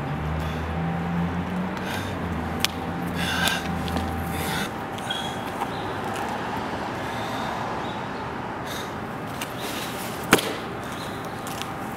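Outdoor background noise with a low steady hum that stops about four and a half seconds in, scattered small clicks, and one sharp knock near the end.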